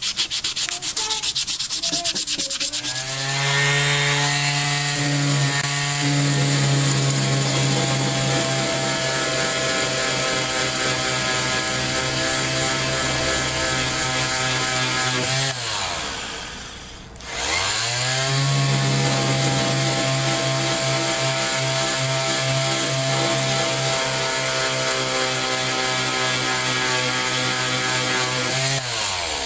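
Electric detail sander taking rust off a steel hatchet head. After a few seconds of scratchy rasping, the motor spins up to a steady hum, winds down and stops about halfway through, then starts again and runs until it winds down near the end.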